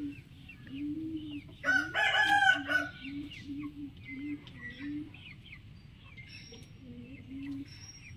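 Rooster crowing once, a short crow of about a second starting a little under two seconds in, which is the loudest sound. Around it runs a series of low clucking notes, about two a second, with faint small-bird chirps above.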